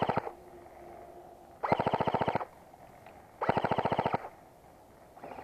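Airsoft electric gun firing short full-auto bursts: the end of one burst right at the start, then two more of under a second each, a rapid run of about twenty shots a second.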